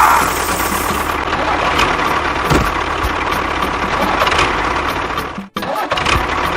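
Small engine of a homemade miniature construction vehicle running steadily with a rattling knock. It cuts out for an instant about five and a half seconds in, then resumes.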